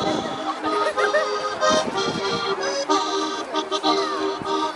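Accordion playing a traditional folk dance tune in held chords that change about once a second.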